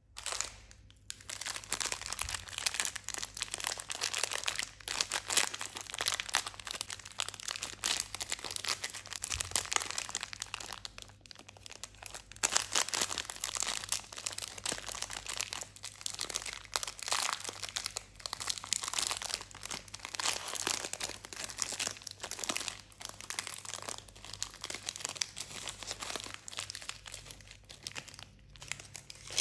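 Crinkling and rustling of a foil-lined plastic Oreo snack-pack wrapper as it is handled and torn open by hand.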